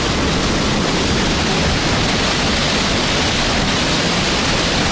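Loud, steady rush of white water pouring over a concrete ledge into a channel, fed by water welling up from the ground under pressure.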